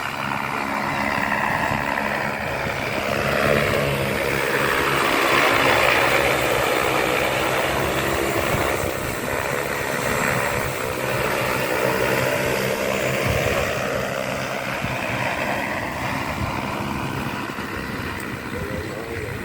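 Rotors of a multirotor crop-spraying drone humming as it flies a pass over the field. It grows louder to a peak about five seconds in, then slowly fades, with its pitch sliding as it goes by.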